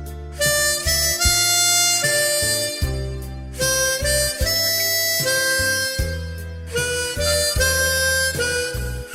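Harmonica playing a slow melody of held notes, each lasting about half a second to a second, over a backing accompaniment with a steady low bass line.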